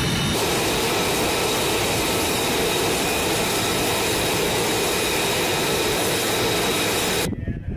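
F-22A Raptor's twin Pratt & Whitney F119 turbofan jet engines. A brief turbine whine while taxiing gives way, less than half a second in, to the steady, loud rushing noise of the jet in flight, which cuts off abruptly near the end.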